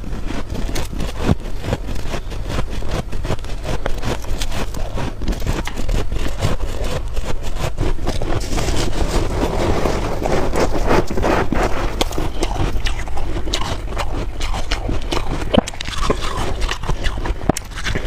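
Freezer frost being scraped and bitten, close to the microphone: a dense, continuous run of crisp crunches and crackles.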